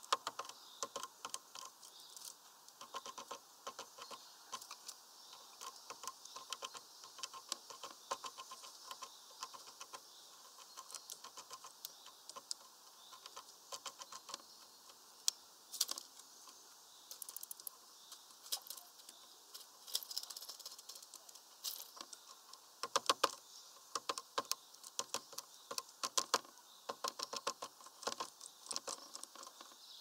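Great tits pecking at a mesh seed feeder and its wooden stick perches: irregular quick taps and clicks, coming in flurries, the densest a little after the middle and near the end.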